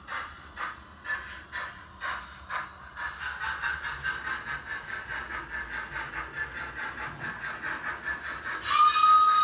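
Steam locomotive sound from a Zimo DCC sound decoder with a Youchoos sound file, played through the small speakers of a Hornby 2P model locomotive. The exhaust chuffs come about two a second, then quicken to a faster beat as the loco picks up speed. Near the end a whistle sounds and holds.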